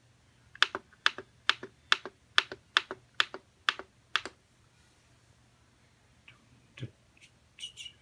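Push button on an American DJ DMX Operator Pro lighting controller tapped about nine times in a steady beat, a little over two taps a second, each press and release clicking: tapping in a tempo for the light chase. A few fainter clicks follow near the end.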